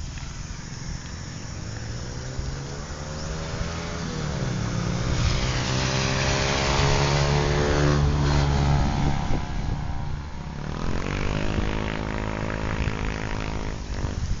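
Vehicles driving past on a wet road. A pickup truck's engine climbs in pitch as it accelerates past, loudest about halfway through with tyre hiss. A second vehicle's engine rises in pitch the same way near the end.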